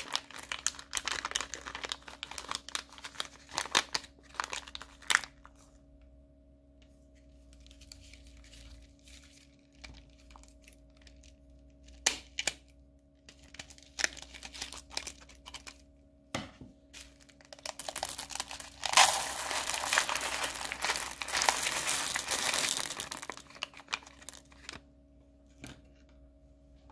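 Thin plastic piping bags crinkling as they are squeezed and shaken, with plastic beads spilling out of them into a bowl. A few sharp clicks of scissors cutting a bag come after the middle, followed by a denser run of crinkling and beads pouring out for several seconds.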